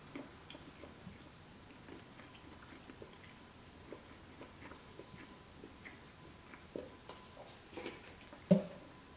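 Close-miked chewing and small wet mouth clicks of someone eating shrimp. A single sharper knock comes about eight and a half seconds in.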